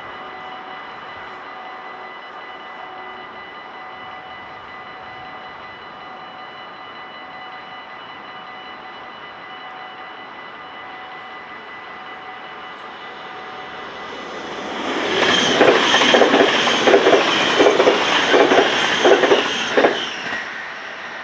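Level-crossing warning bell ringing steadily with the barriers down. About fourteen seconds in, a passenger train passes at speed, its wheels clacking in a fast regular rhythm over the rail joints for about six seconds, then fading.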